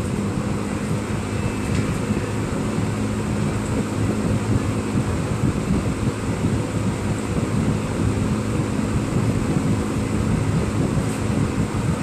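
Vintage 1950s–early 1960s Dominion box fan running steadily, its metal blades pushing a strong rush of air over a low motor hum.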